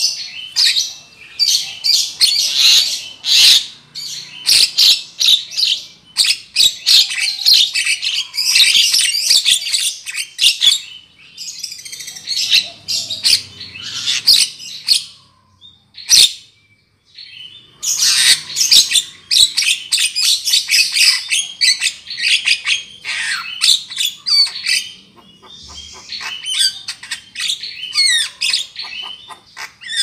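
Javan myna (jalak kebu) calls played as a bird-lure recording: rapid, noisy chattering and squawking notes in long dense runs, breaking off briefly a little past halfway.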